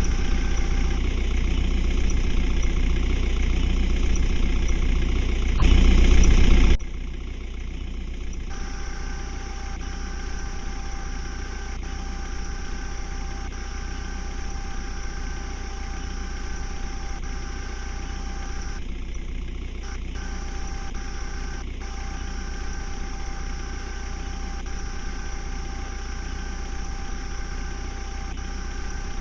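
JCB 3DX backhoe loader's diesel engine idling steadily. It is louder at first, briefly louder still about six seconds in, then drops abruptly to a quieter steady idle.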